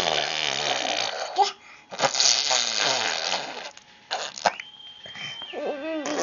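Funny mouth noises: two long, loud, spluttering raspberries blown through the lips, fart-like. Near the end come a few sharp clicks, a short steady high tone and squeaky, pitched voice sounds.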